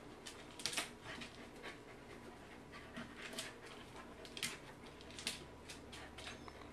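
A Pembroke Welsh corgi panting in short, uneven breaths.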